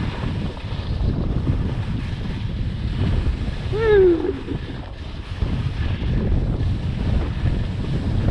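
Wind buffeting the microphone of a skier moving downhill, a dense steady rumble. About four seconds in, one short shout falling in pitch cuts through.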